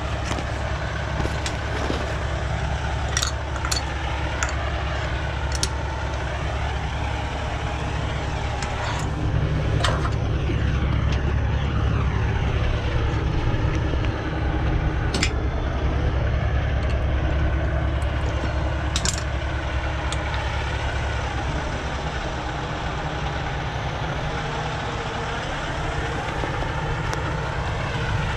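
Semi truck's diesel engine idling steadily, with a few scattered light clicks and taps close by.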